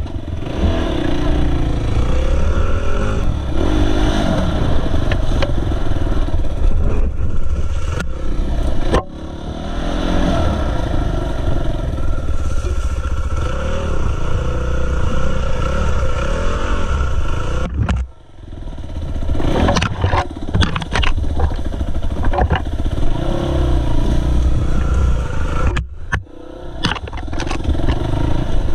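Dirt bike engine running and revving up and down while it is ridden over a rough off-road trail. About eighteen seconds in the sound drops away briefly, then builds back up.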